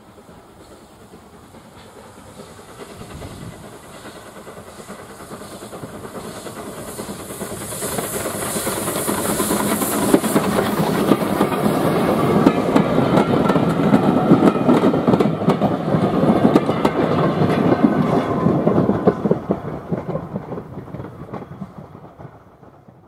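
A steam-hauled train of bogie coaches approaches, passes close by and fades away. A hiss of steam rises as the locomotive goes by, about eight to twelve seconds in. A rapid, loud clatter of coach wheels on the track follows, then dies away over the last few seconds.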